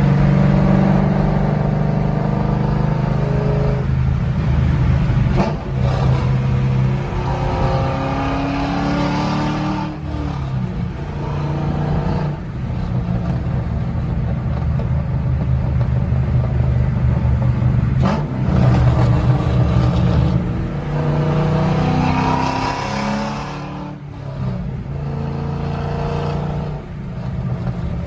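Ford 4.6-litre three-valve V8 breathing through long-tube headers, an X-pipe and a Roush Extreme exhaust, driven at highway speed. The exhaust note rises in pitch under acceleration several times, with short drops in level between pulls.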